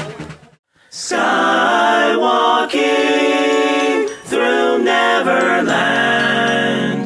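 A cappella singing: several voices holding chords in harmony, without instruments. It begins about a second in after a short silent gap and goes in three long phrases.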